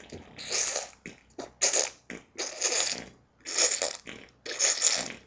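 Imitation fart noises made by a person: about five short, raspy blasts, roughly one a second.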